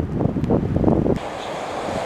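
Gusty wind buffeting the microphone with low rumbling. A little over a second in, it changes abruptly to a lighter, steadier hiss.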